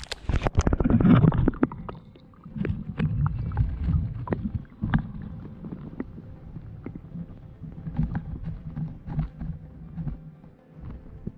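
Camera breaking the surface into a river, with a loud wash of water at first, then the muffled low rumble and gurgle of the current heard underwater, with scattered small clicks and knocks.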